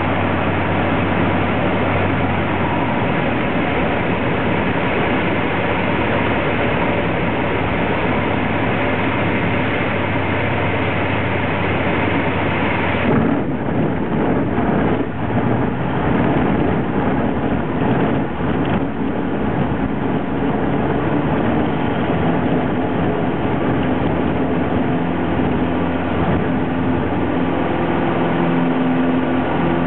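Cessna 150L's four-cylinder Continental O-200 engine and airflow, heard from inside the cabin as a loud, steady drone. About 13 seconds in, the sound changes abruptly, followed by several seconds of irregular knocks and rumbles. Near the end the engine's pitched note grows clearer.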